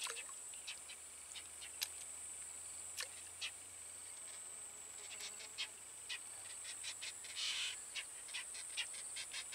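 Small plop of a baited hook and float dropping into still swamp water right at the start, followed by a steady high-pitched insect drone with scattered faint ticks.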